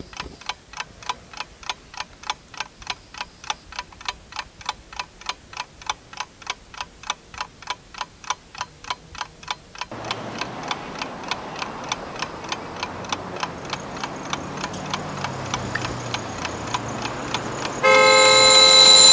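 A clock ticking steadily, about three ticks a second. About ten seconds in, road traffic noise rises under the ticking. Near the end a loud, steady horn blast cuts in.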